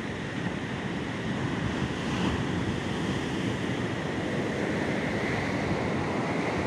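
Steady rushing of ocean surf breaking on a sandy beach, swelling slightly louder, with wind on the microphone.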